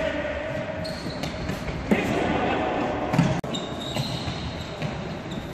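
Floorball play in an echoing sports hall: plastic ball and stick knocks and shoes squeaking on the court floor, with a thin high squeal from about the middle on. Music fades out in the first second.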